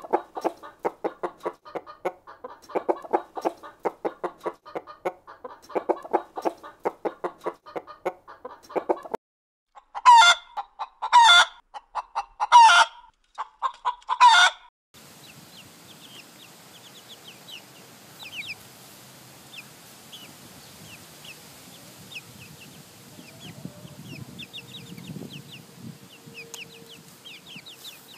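Domestic chickens: rapid, steady clucking for about nine seconds, then four loud, short calls a second or so apart. After that comes a quieter stretch of many small, high chirps over a faint steady hum.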